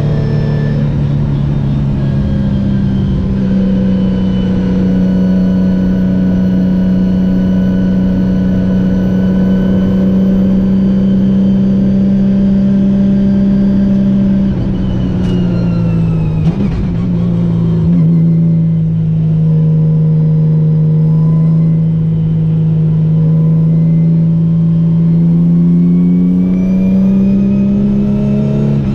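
Renault Mégane V6 Trophy race car's 3.5-litre V6 at speed, heard on board. The note holds steady for about fifteen seconds, then drops and wavers as the car slows, with a sharp knock. It then climbs steadily for about ten seconds as the car accelerates, and falls again at the very end.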